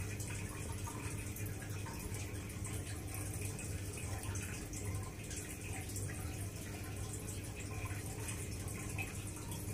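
Aquarium water trickling and bubbling steadily from the tank's filter, over a low steady hum.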